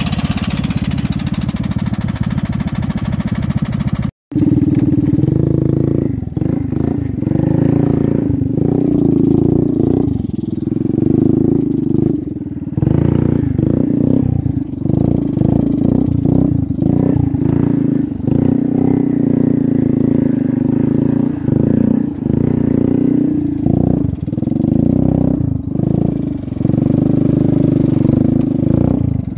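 Small off-road vehicle engines running and revving unevenly with frequent throttle changes as the machines ride over rough snowy ground. The sound cuts out briefly about four seconds in and then resumes.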